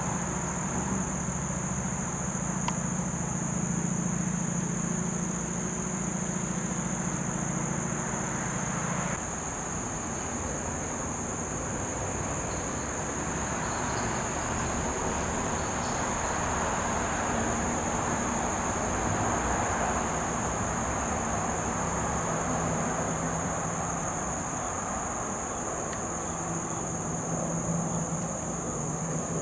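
Steady, high-pitched insect chorus over a low rumble of distant traffic; the rumble is stronger in the first nine seconds, then eases.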